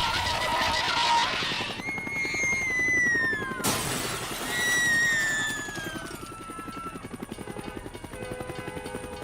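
A rushing hiss, then two long falling whistles, each starting with a burst of noise, fading into quieter steady tones: an edited sound-effects collage.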